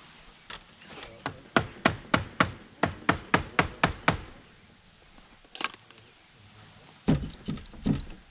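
Hammer striking the wooden door frame, a quick run of about a dozen blows at roughly three a second. A single knock follows, then a few heavier, duller wooden thumps near the end.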